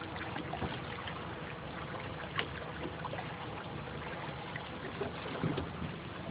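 Small boat on the water: a steady low motor hum with water splashing and lapping against the hull, and occasional small knocks.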